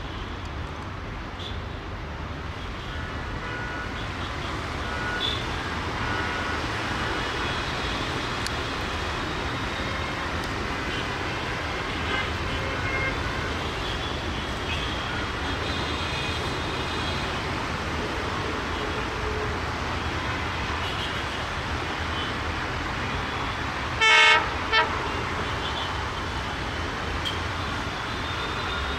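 BR ALCO 6515 (WDM-3A) diesel locomotive approaching with a steady low rumble that grows a little louder. Near the end it sounds its horn twice: a blast of under a second, then a short one.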